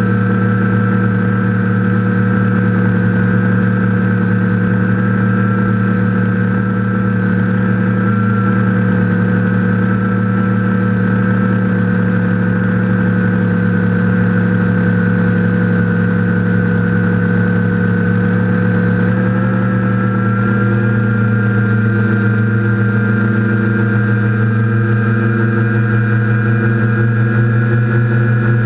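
TBS Discovery quadcopter's brushless motors and propellers humming steadily in flight, picked up by the onboard camera, with the pitch rising slightly about two thirds of the way through.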